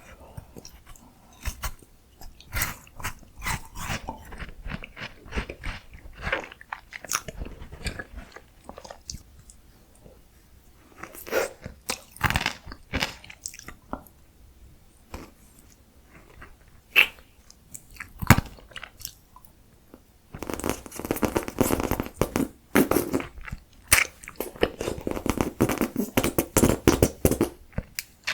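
Close-miked eating of miniature ice creams: crisp crunching bites and chewing in scattered bursts with pauses, turning into a dense, steady run of crunching from about two-thirds of the way through.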